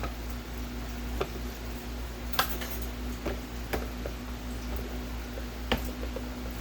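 Scattered light clicks and taps of small parts and tools being handled during reassembly, about five in all, the sharpest about two and a half seconds in, over a steady low hum.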